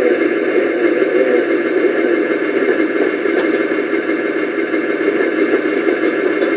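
Sound-effect unit playing a simulated KV-2 heavy tank engine idling: a steady, unchanging rumble, with one brief click about three and a half seconds in.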